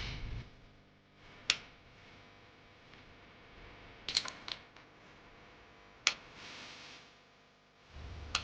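A few sharp, separate clicks and taps, the kind small metal parts or hand tools make as they are handled: one, then a quick cluster of three, then one more. A low hum cuts out in the first half-second and comes back near the end.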